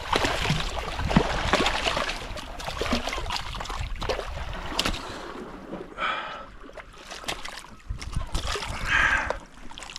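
Sea water splashing and sloshing, loudest in the first half. Two short, higher-pitched sounds come about six and nine seconds in.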